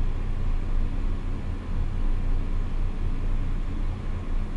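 Steady low hum and rumble with a faint even hiss behind it, unchanging throughout.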